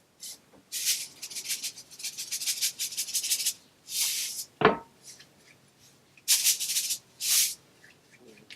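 Seasoning shaker shaken in quick bursts, its grains rattling, with one sharp knock about halfway through.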